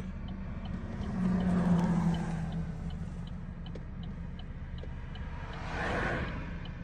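Steady low rumble, like a vehicle's engine heard from inside, with a faint ticking about twice a second; the rumble swells briefly about a second in and again near the end.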